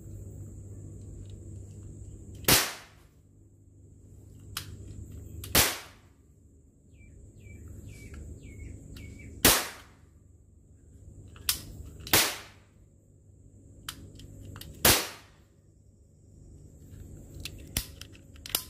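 Toy cap-gun revolver firing plastic ring caps: five sharp bangs a few seconds apart, with several lighter clicks in between.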